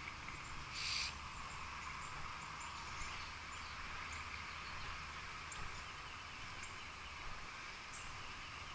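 Outdoor morning ambience: scattered high bird chirps over a steady background hiss, with one brief louder noise about a second in.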